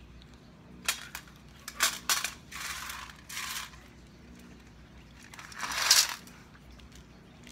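Small snail shells clinking and rattling inside a round metal tin as it is handled: a few sharp clicks, two short rattles, then the loudest rattle about six seconds in.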